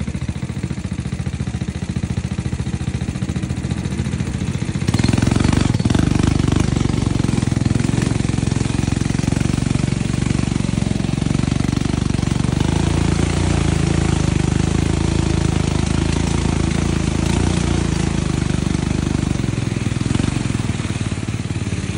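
ATV (quad bike) engine running close by with a fast, even pulsing beat; it gets noticeably louder and rougher about five seconds in as the ride picks up speed on the muddy track.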